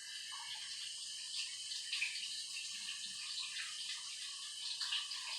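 Steady rush of water running from a tap, with small splashes.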